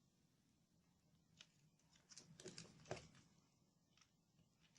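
Faint, scattered plastic clicks and taps from a smoke alarm's casing being handled and its cover opened, most of them about a second and a half to three seconds in.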